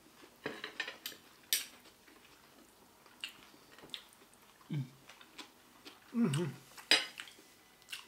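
Fork and fingers clinking against dinner plates at the table, a scattering of short sharp clicks, with a brief low hum of a voice about six seconds in.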